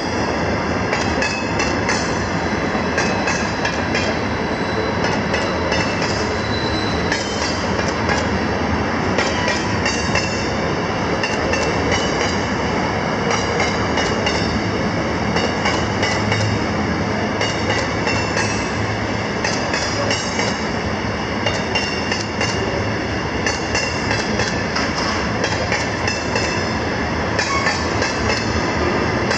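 Freight train of ballast hopper wagons rolling past on curved track: a steady rumble of wheels on rail, with repeated clicks from the wheels and a steady high-pitched wheel squeal.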